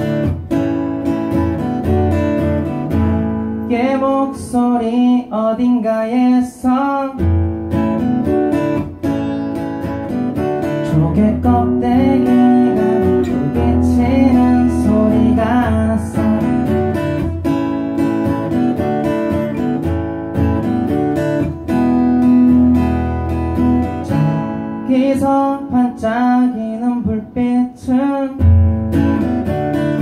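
Acoustic guitar strummed steadily, with a singer's voice coming in for sung phrases over it.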